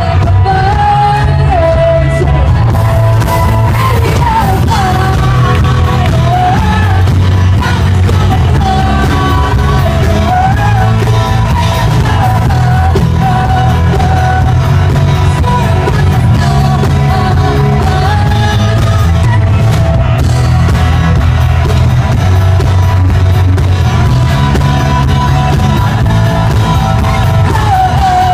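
A live band playing a song with a vocalist singing over it. The music is loud and steady, with a strong bass.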